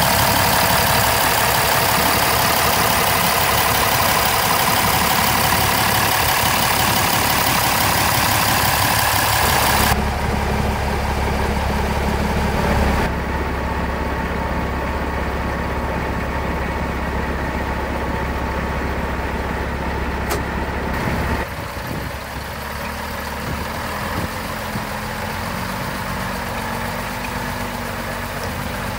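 1980 Scania LS 111's 11-litre straight-six diesel engine idling steadily, loud and full of hiss close up in the engine bay for the first ten seconds. It then sounds lower and more distant from beside the truck, with abrupt jumps in the sound about ten, thirteen and twenty-one seconds in.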